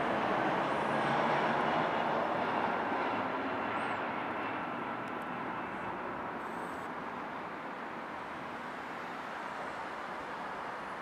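Airbus A320 jet engines passing on landing approach: a steady rushing noise that is loudest in the first few seconds and slowly fades as the airliner moves away toward touchdown.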